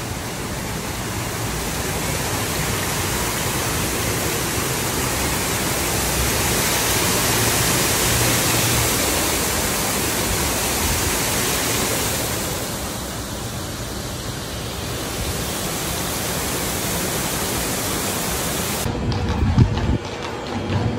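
Water pouring down a stone wall in a waterfall, a loud, steady rush of noise with no pitch to it. Near the end it cuts off abruptly to quieter city street sound.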